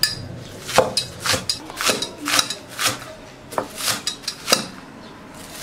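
Chinese cleaver chopping scallions on a wooden chopping board: sharp knocks of the blade on the board about twice a second, thinning out near the end.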